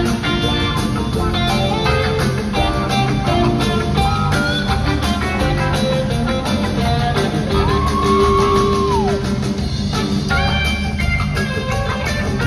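A live rock band playing in an arena, heard from the stands: guitar, keyboards and drum kit. About halfway through, a held high note slides up and falls away about a second and a half later.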